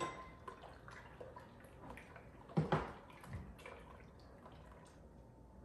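Coquito being spooned from a pot into a glass: soft dripping and splashing of the liquid, with a few light clicks and knocks of the spoon against the pot and glass.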